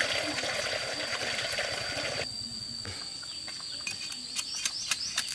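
Water splashing as a face is washed with handfuls of water, cutting off abruptly about two seconds in. A steady high insect drone runs throughout, and a series of sharp clicks begins near the end.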